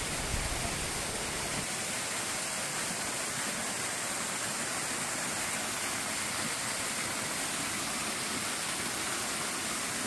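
A waterfall cascading down a rocky slope: a steady, even rush of falling water.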